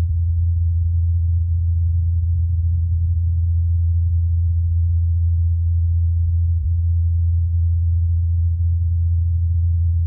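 Ingenuity Mars helicopter's rotor blades spinning at 2,537 rpm in flight, heard as one steady low hum, muffled by the thin Martian atmosphere and picked up about 80 m away by the Perseverance rover's SuperCam microphone in an enhanced recording.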